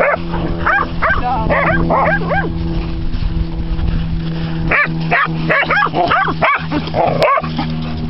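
Dogs barking in quick runs of short barks while playing, one run in the first couple of seconds and another from about five to seven seconds in.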